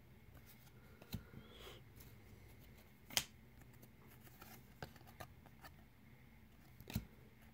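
Faint clicks and rustles of cardboard trading cards being flipped through one by one in a hand-held stack, with a sharper snap about three seconds in and another near the end.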